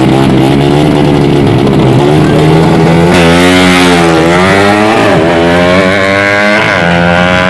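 A 130cc underbone drag bike engine is held at high revs on the start line. About three seconds in it launches and accelerates hard away, its pitch climbing and dropping back at each gear change.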